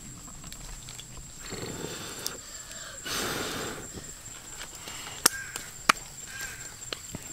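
Rustling as leaves and twigs on the forest floor are handled, with two sharp snaps about five and six seconds in, over a faint steady high whine.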